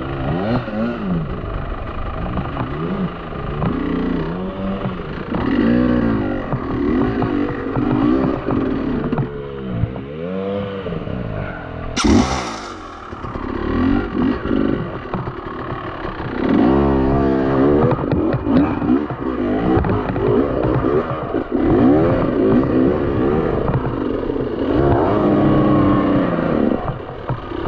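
Dirt bike engine revving up and down over and over, working under load on a steep rocky climb. There is one sharp crack about twelve seconds in, and scraping and clattering over rock.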